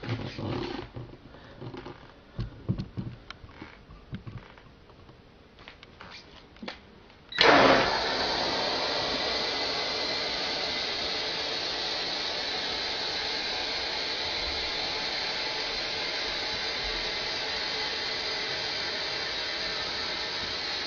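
A few faint clicks and rustles, then about seven seconds in compressed air from a tank at about 105 psi bursts out through a relay-triggered sprinkler valve with a sudden loud rush. It settles into a steady hiss of escaping air.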